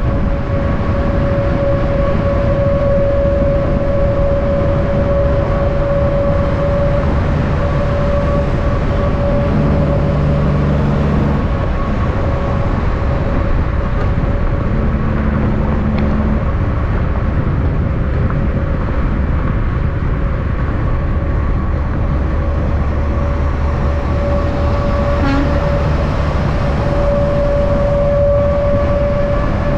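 Semi-trucks running at highway speed: steady tyre and wind rumble with a constant droning hum, and a lower engine note that swells and fades a couple of times.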